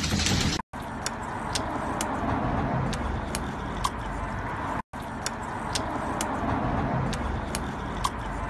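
English bulldog licking and smacking at food, giving short wet clicks about twice a second over a steady rushing background noise, with two brief cuts to silence.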